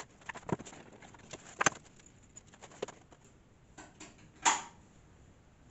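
Scattered light clicks and knocks from handling a freshly drilled plastic pickguard and a metal clamp on a wooden bench, with one louder knock about four and a half seconds in.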